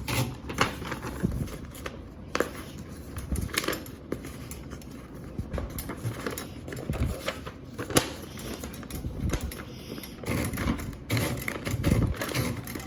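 Hermès Baby portable typewriter being worked by hand: scattered, irregular clicks and clacks of its mechanism as paper is fed round a platen that is not pulling the paper through.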